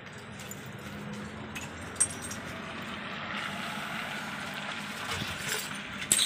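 Steady background rumble with a few sharp clinks and knocks of bottles and broken glass being handled and gathered off the floor. The loudest clink comes about two seconds in, another near the end.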